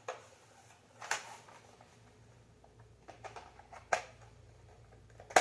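Sharp clicks and light knocks of Xbox Series S console parts being handled and pressed together, five or so spread over the few seconds, over a faint low hum.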